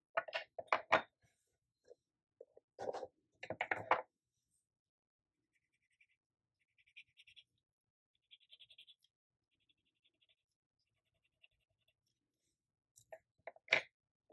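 Watercolor pencils clicking and knocking together as one is taken from a loose pile, in clusters during the first few seconds and again near the end. In between, a watercolor pencil tip scratches faintly on paper as it outlines printed letters.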